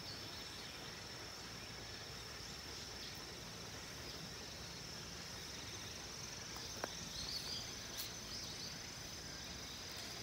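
Steady high-pitched drone of insects in the surrounding forest, with a few faint short chirps over it.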